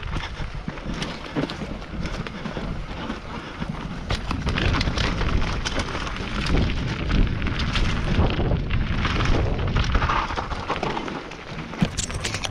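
Mountain bike descending a dirt singletrack, heard from a camera mounted on the bike: steady wind rumble on the microphone, tyre noise over the dirt, and frequent clicks and rattles from the bike over bumps.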